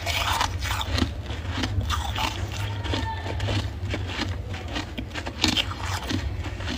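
Close-up chewing of powdery freezer frost: a run of irregular crisp crunches over a steady low hum.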